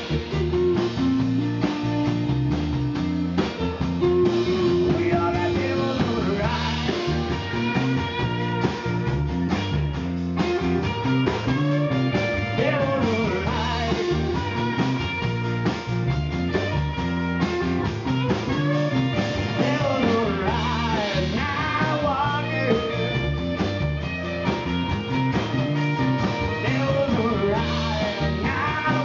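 Live rock band playing a song: strummed acoustic guitar, electric guitar and bass, with a man singing lead vocals.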